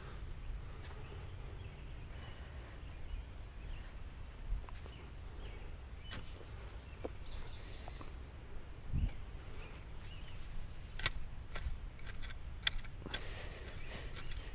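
Scattered light clicks and rustles of hands working soil while transplanting seedlings, over a low steady rumble; a sharper knock about nine seconds in, and a few clearer clicks near the end.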